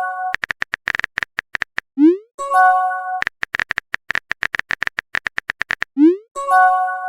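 Texting sound effects: a run of rapid phone-keyboard typing clicks, a short rising swoosh as the message is sent, and a brief chime of several notes. The cycle plays twice, about four seconds apart.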